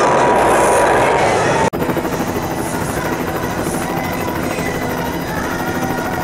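Helicopter rotor sound effect: a steady rotor sound with a fast, even pulse, cutting in abruptly about a second and a half in. Before the cut, a loud crowd with music.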